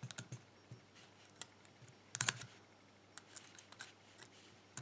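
Small metal clicks and light scrapes of a clip spreader working at the retaining clip on the plug of a DOM euro-cylinder lock, with a louder cluster of clicks a little past the middle.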